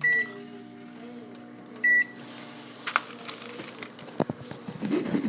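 Microwave oven being started: a short beep from the keypad, then a steady running hum, with a second beep about two seconds in and a few light clicks later.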